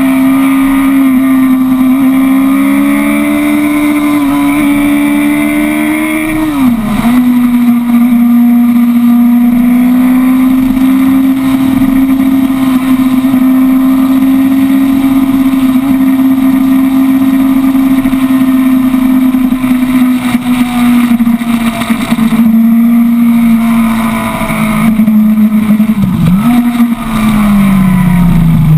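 Sport motorcycle's engine at high revs, heard from onboard with wind rushing past the microphone: a steady high engine note held for long stretches, with two brief sharp dips in pitch, one about a quarter of the way in and one near the end, after which the revs fall away.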